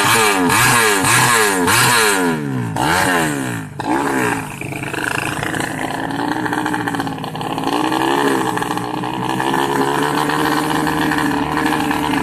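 Drag-race motorcycle engine revved in quick throttle blips, about two a second, for the first few seconds. It then settles into a steady idle, with one brief small rev about eight seconds in.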